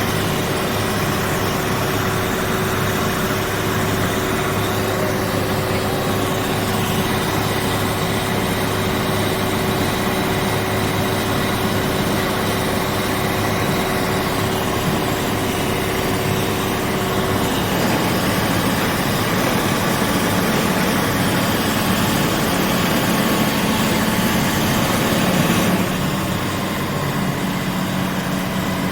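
Motorboat engine running steadily, with a small change in its tone a little past halfway through.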